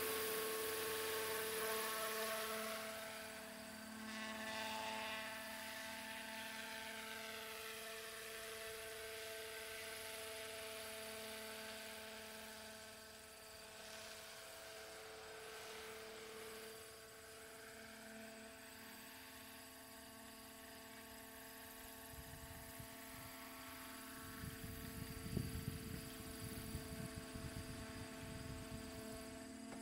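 Brushless electric motor and rotor of a 700-size radio-controlled scale helicopter running with a steady, even whine. The whine is louder for the first few seconds, then settles quieter. An uneven low rumble joins in near the end.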